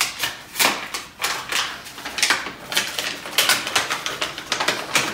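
Paper crinkling and rustling in a quick, irregular run of sharp crackles as a tight feedback card is worked open.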